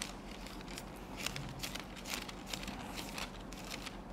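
Bible pages being turned while the Galatians passage is looked up: scattered faint rustles and soft clicks over a steady low hum.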